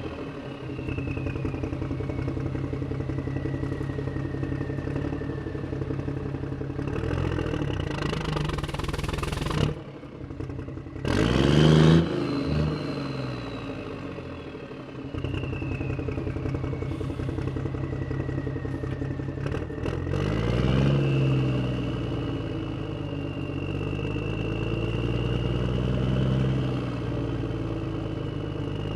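Motor vehicle engine running under way, its revs rising and falling. A high whine slides down and back up. The sound cuts out briefly about ten seconds in, and a sharp burst of revs comes a second or two later.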